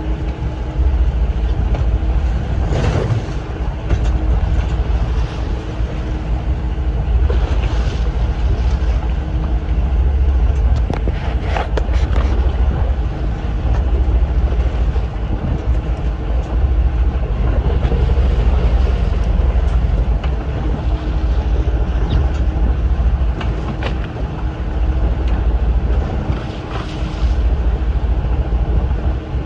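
Fishing boat's engine running with a steady low rumble and hum, mixed with wind buffeting the microphone and waves against the hull.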